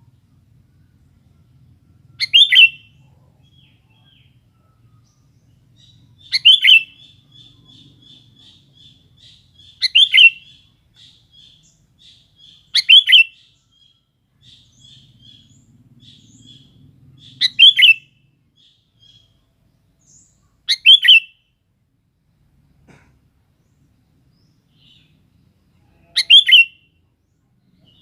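Sooty-headed bulbul calling: seven short, loud calls spaced three to four seconds apart, with a fainter rapid twittering run between them through the middle.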